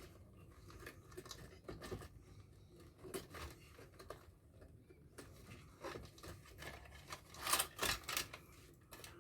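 Wire clippers snipping the wires off a circuit board, with faint clicks and cable handling between cuts; the loudest snips come near the end.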